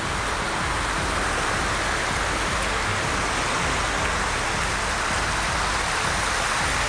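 Steady rush of water pouring down the cascades of a warm hot-spring stream.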